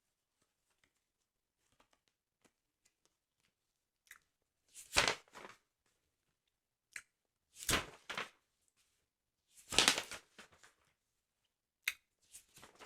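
Paper of a football sticker album being handled close to the microphone: three short bursts of paper rustling a couple of seconds apart, with a few light taps and clicks between them.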